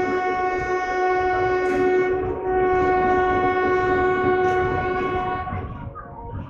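Train horn sounding one long, steady blast over the rumble and clatter of the train's wheels as it rolls out. The horn stops about a second before the end, leaving the wheel noise.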